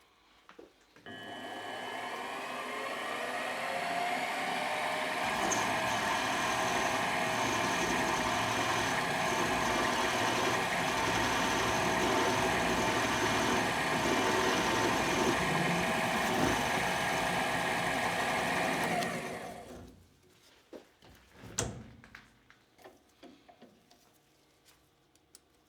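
Optimum TU3008G's milling-head spindle motor starting and spinning up with a rising whine, running steadily while a boring head cuts a mounting hole, then stopping about 19 seconds in. A few light clicks and knocks follow.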